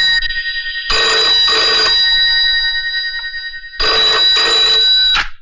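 Telephone ringing: two long rings, each a steady chord of high tones, the first about a second in and fading slowly, the second near the end and cut off suddenly.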